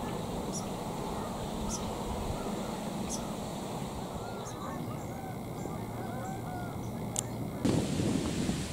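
A flock of Canada geese honking, many overlapping calls blending together, with faint high ticks about once a second. Near the end it gives way abruptly to louder wind through leaves.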